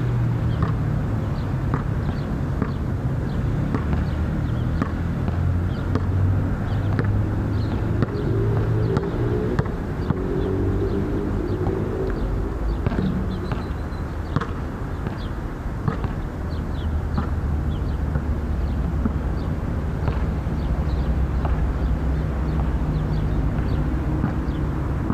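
Steady low engine rumble, its pitch shifting now and then, with scattered light clicks and knocks over it.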